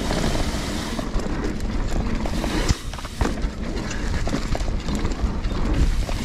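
Trek Fuel EX mountain bike ridden along dirt singletrack: tyres on the trail and the frame and drivetrain rattling over bumps, over a heavy low rumble, with a sharp knock about two and a half seconds in.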